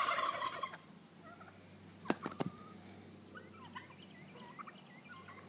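Poultry calling: a rattly call in the first second, then faint scattered short clucks later on. A few light knocks come about two seconds in.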